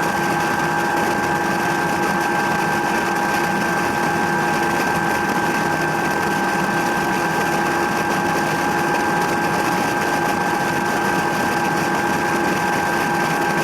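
Helicopter in flight heard from aboard: steady engine and rotor noise with several constant whining tones.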